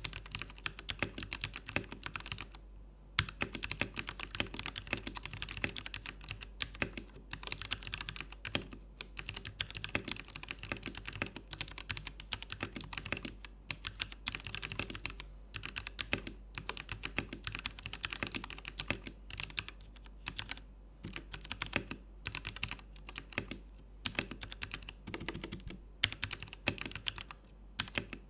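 Royal Kludge RK84 mechanical keyboard with tactile brown switches being typed on fast and without stopping. The key clacks come in a dense run, broken by a few brief pauses.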